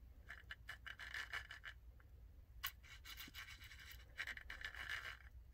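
Faint scratching and rubbing of plastic with small clicks as the gear inside an opened HVAC blend door actuator is worked loose by hand. The sounds come in two short spells with a sharp click between them.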